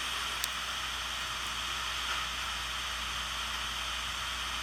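Steady shortwave static hiss from a Midi MD-9500SD portable receiver's speaker, tuned to 15190 kHz, with no clear station audible through the noise. There is one brief click about half a second in.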